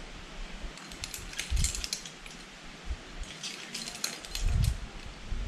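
Metal climbing hardware, carabiners and quickdraws, jangling and clinking in two short bursts, with low dull thumps along with them.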